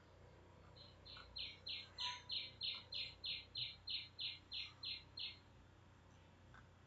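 A bird calling: a run of about fourteen short, high chirps, about three a second, lasting about four seconds.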